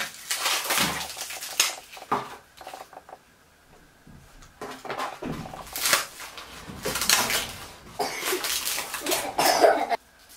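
Whole dried pollack being torn apart by hand: crackling and tearing of the brittle dried skin, flesh and bones. It comes in bursts, with a lull of about two seconds after the first, and cuts off suddenly near the end.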